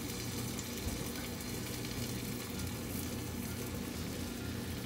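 Breaded fish fillet frying in a hot pan: a steady sizzle.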